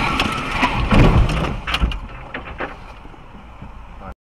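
Aftermath of a car collision heard from the struck car's dashcam: crunching and a few sharp knocks and clatters in the first two seconds or so, fading away before the sound cuts off abruptly near the end.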